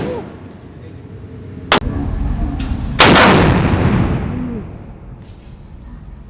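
Short-barrelled AR-15 pistol firing single shots: a real loud boom about three seconds in with a long ringing tail, a sharp crack shortly before it, and the dying tail of a shot fired just before.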